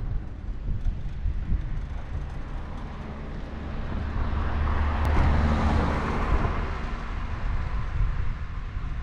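Wind buffeting the microphone of a camera on a moving bicycle, a steady low rumble throughout. About halfway through, a car passes, its tyre and engine noise swelling and then fading.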